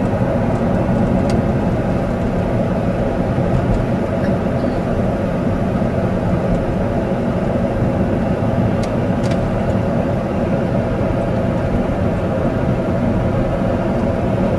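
A car driving, heard from inside the cabin: a steady, even rumble of engine and road noise.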